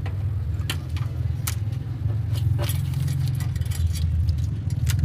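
Toyota Corolla engine running at a steady idle, with a few light clicks over it.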